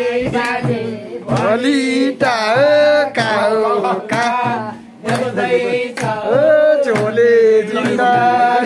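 A voice singing a melody in long, bending held notes, over a steady low hum, with a sharp hit or clap about once a second.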